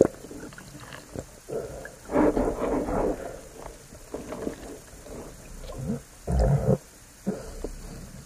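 Muffled water sounds picked up by an underwater camera just below the surface: sloshing and bubbling, with a louder spell about two seconds in and a shorter, deeper one about six seconds in.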